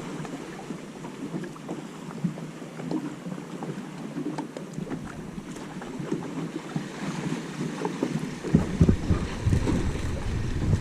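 Wind buffeting the microphone outdoors over open water, with scattered small clicks throughout; the low wind rumble gets much stronger about eight and a half seconds in.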